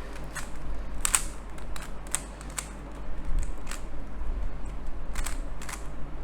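Plastic Rubik's cube being turned by hand: irregular sharp clicks and clacks as its layers snap round, a dozen or so over a few seconds.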